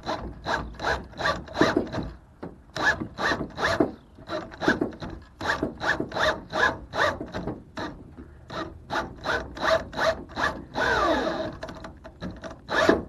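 Insulated cable being fed through a drill-driven wire stripper, the blade scraping and rubbing along the insulation in rhythmic strokes, about two a second. Near the end there is a longer whirring scrape that falls in pitch.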